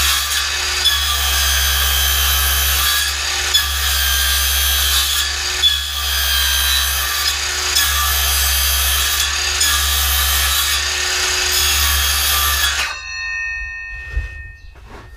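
DeWalt cordless circular saw running and cutting into a wooden board, making cuts so the waste can be chiseled out. About thirteen seconds in, the saw is switched off and the blade winds down.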